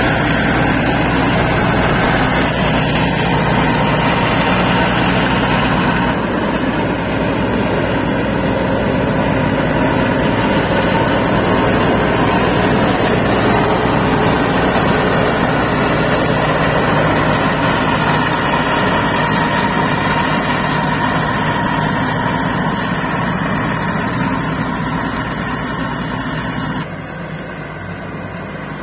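Scag Turf Tiger zero-turn mower's Cat diesel engine running steadily with its cutting deck engaged in overgrown grass. The sound drops and grows more distant near the end as the mower pulls away.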